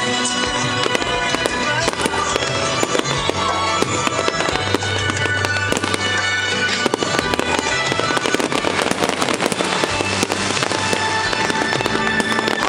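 Fireworks bursting and crackling in quick succession, over loud music from a sound system.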